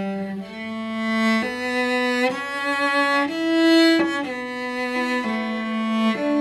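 Cello playing a slow, smooth melody of bowed notes about a second each, climbing step by step to a high note near the middle and stepping back down.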